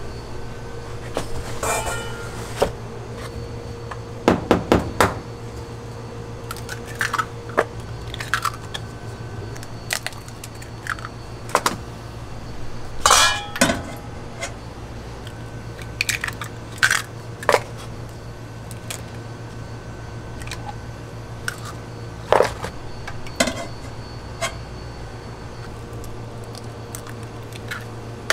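Eggs being cracked and handled against stainless steel bowls: sharp taps and metallic clinks at irregular intervals, with a quick run of knocks about four seconds in. A steady low hum runs underneath.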